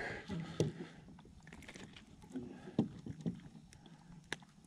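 Quiet, scattered clicks and small knocks from fishing tackle being handled aboard a plastic kayak while a small bass is brought in on the line, with one sharp click near the end.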